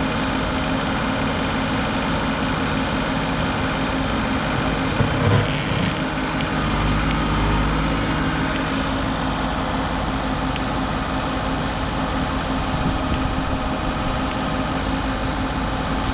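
Engine of a heavy machine running steadily, with a brief rise in low engine sound about seven seconds in.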